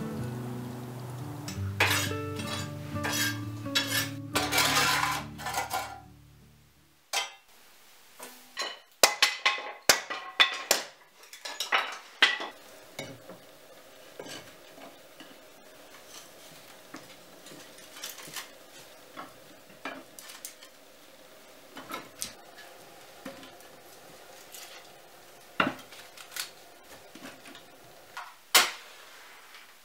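Metal clanking and scraping as a gloved hand works inside a wood stove's firebox and handles its metal door, loudest in a quick run of clanks from about seven to thirteen seconds in, then lighter scattered clicks and knocks with one sharp knock near the end. Background guitar music fades out over the first several seconds.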